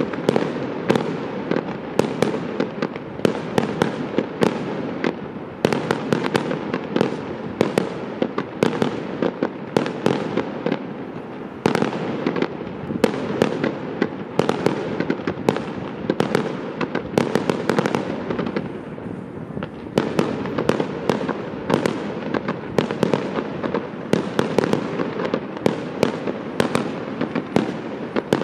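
Fireworks display: an unbroken run of sharp bangs and cracks from bursting shells, a few a second, over a continuous noisy din.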